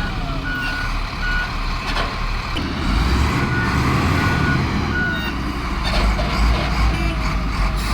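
Heavy truck engine running with a steady low rumble that grows louder partway through, while a truck's reversing alarm beeps: two beeps, a pause, then three more.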